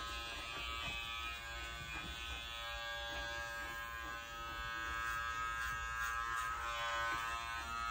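Electric dog-grooming clipper fitted with a #15 blade, running with a steady buzzing hum.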